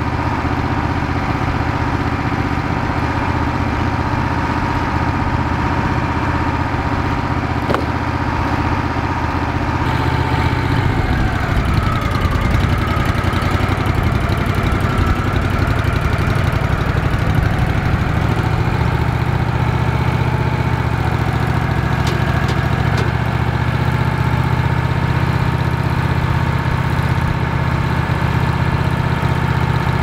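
Wood-Mizer LX150 portable bandsaw mill's engine running steadily, its note shifting about ten seconds in.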